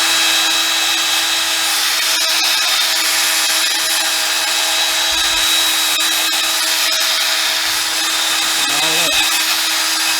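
Electric drill with a wire brush spinning at a steady speed against rusty metal, scrubbing off rust.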